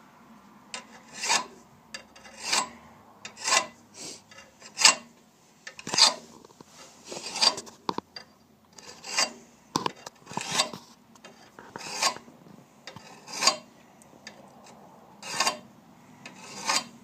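Hand file rasping across the cutting edge of a Lawn-Boy rotary mower blade, sharpening it in regular strokes about once a second.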